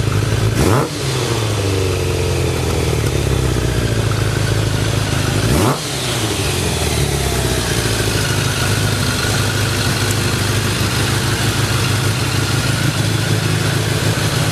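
Kawasaki ZX-10 inline-four motorcycle engine idling, with a quick throttle blip about a second in and another about five and a half seconds in. Each time the revs jump sharply and settle back to a steady idle. The idle is stable and shows no abnormal noise.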